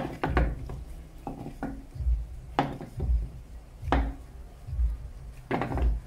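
Flour dough for boiled dumplings being kneaded by hand in a metal bowl: irregular dull thumps and knocks, one or two a second, as the dough is pressed and turned against the bowl.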